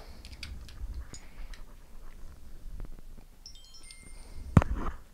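Handling noise as a wall-charger plug and USB cable are unplugged and moved: small clicks and rustles over a low rumble. A little before the end there is a brief run of faint, high electronic tones, then a single sharp click.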